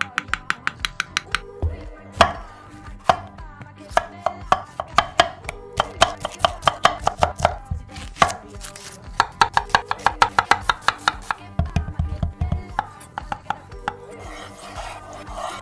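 Large kitchen knife chopping through vegetables (avocado, onion, tomato) onto a wooden cutting board: fast runs of sharp chops, several a second, broken by short pauses.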